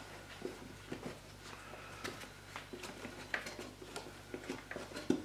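Gloved hands seating a new panel air filter into the groove of a plastic airbox: faint scattered rubbing and light taps, with a sharper knock near the end.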